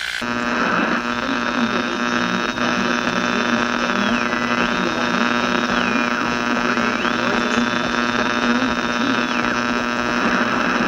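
Steady electrical hum and buzz with hiss, the noise of a worn vintage recording. A high whistling tone drops in pitch and climbs back three times over it.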